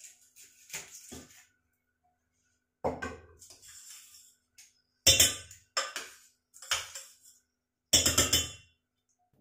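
Steel spoon clinking and scraping against steel kitchen vessels: light scrapes at first, then several sharp, ringing clinks, the loudest about five and eight seconds in.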